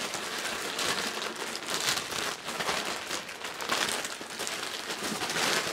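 Clear plastic packaging bag crinkling as it is handled and pulled open, a continuous rustle with denser crackles now and then.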